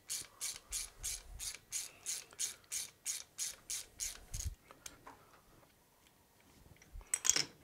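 Ratchet wrench clicking in quick, short back-and-forth strokes, about three or four a second, as a socket extractor turns a broken, rusted exhaust stud out of the cylinder head. The ratcheting stops about four and a half seconds in, and a few faint clicks follow near the end.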